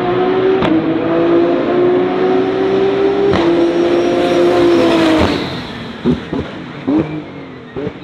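A DTM GT3 race car engine at full throttle, its note climbing steadily and broken by two upshifts with a sharp crack. About five seconds in the note drops as the car lifts off for braking, then three quick throttle blips on the downshifts come as the sound fades.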